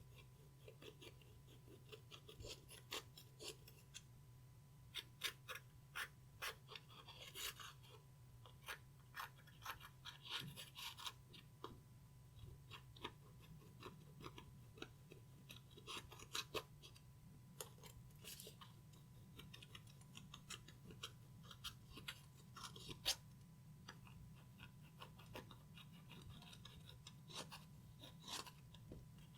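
Clear slime being kneaded and stretched by hand: faint, irregular sticky clicks and crackles, with a low steady hum underneath.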